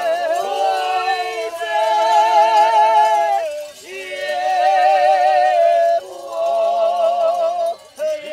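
A group of Polish highlanders (górale) singing a highland folk song in harmony, with long held high notes and a strong vibrato. The phrases break off briefly about three and a half seconds and six seconds in.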